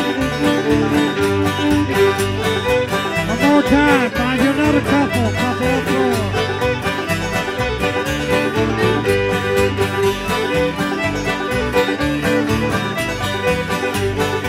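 Live string band playing a lively bluegrass dance tune: fiddle, banjo and guitar over a steady, even beat.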